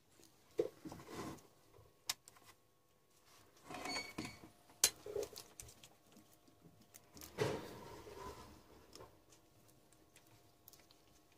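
Handling noises of a battery charger's crocodile clamp and cables: rustling of the cable and gloved hand with a few sharp clicks as the clamp is clipped onto a small sealed lead-acid battery's terminal.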